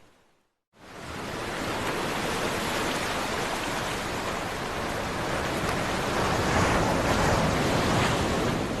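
Ocean surf: a steady wash of waves that swells a little near the end. It cuts out briefly at the start and comes back in under a second.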